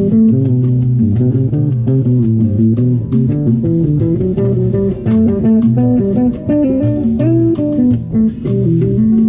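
Instrumental music led by plucked guitar with a bass guitar line and a steady beat.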